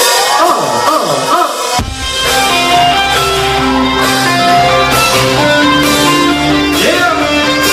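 Shrill crowd cheering, then about two seconds in a live rock band comes in with drum kit, bass and guitars playing sustained chords.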